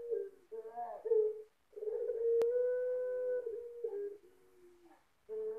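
Ringneck dove (puter) of the big-voiced 'pelung' type cooing: a short wavering rise, then a long low coo held steady for almost two seconds, dropping lower and fading at its end. A new coo starts near the end.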